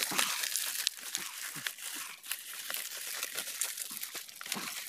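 Fresh green leaves being crumpled, torn and rustled by hand and pushed into a green bamboo tube: a continuous run of crackles and small snaps.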